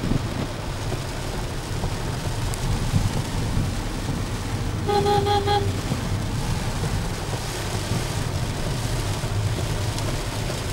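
Steady low rumble of a car driving in heavy rain, heard from inside the cabin, with rain on the windows. About five seconds in, a vehicle horn honks in a quick run of about four short beeps.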